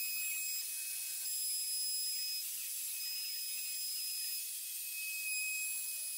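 Handheld electric router running at full speed as it is guided along the curved edge of a walnut frame, cutting the wood: a steady high whine over a hiss.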